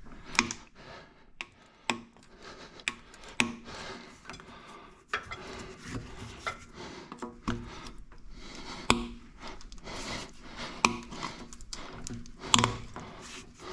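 Scattered light clicks, taps and rubbing as hand tools and fuel-line parts are worked by hand, with no steady machine sound.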